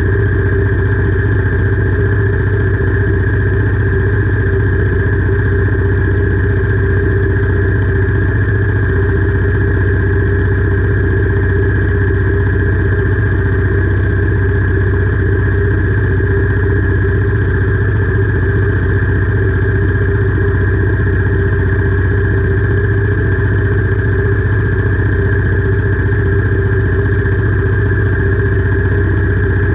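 Royal Enfield Meteor 350's single-cylinder engine idling steadily, with no change in revs.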